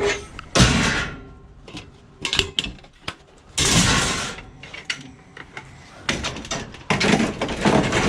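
Scrap metal and junk being handled and loaded: a run of knocks and clanks, with three longer scraping clatters about half a second in, near the middle and near the end.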